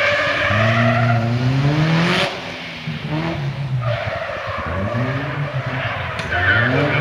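Autotest car's engine revving hard in short bursts, the pitch climbing, then dropping back as the driver lifts off about two seconds in, and climbing again twice more.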